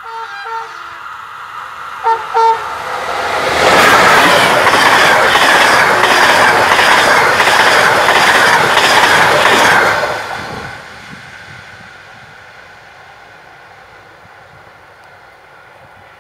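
Train horn sounding in short blasts, then a passenger train passing at speed close by: a loud rush of wheels on rail with a regular clickety-clack of the wheels beating over the rail joints. The noise drops away sharply about ten seconds in and trails off into a faint rumble.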